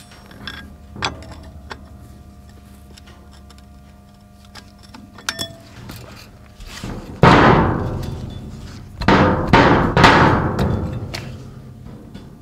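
A floor jack being worked under a heavy steel loader bucket to lower it: light clicks and knocks, then two loud noisy rushes about seven and nine seconds in, each fading over a second or two.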